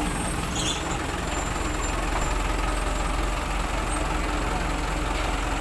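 Heavy vehicle engine idling steadily with a low, even hum.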